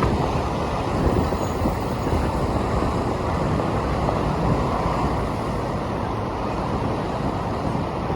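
City road traffic noise: a steady, even wash of passing vehicles, with no single event standing out.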